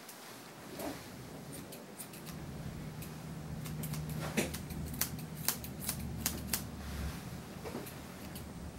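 Grooming shears snipping a Scottish terrier's coat: a run of short, sharp snips, most of them in the second half, over a low steady hum.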